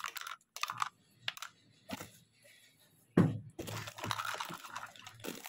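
Plastic spoons and bowls clicking and clattering against each other as they are handled, a few separate light clicks at first, then about three seconds in a louder stretch of continuous handling noise.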